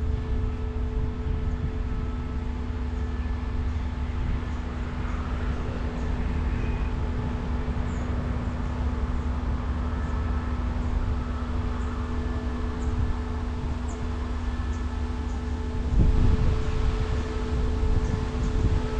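Steady low hum and rumble of idling diesel-electric locomotives, growing louder about sixteen seconds in.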